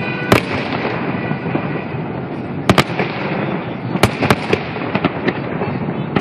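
Aerial firework shells bursting in a display: sharp bangs, one just after the start, a quick pair a little before halfway, another pair about two-thirds in and smaller pops after, over a continuous dense crackling din.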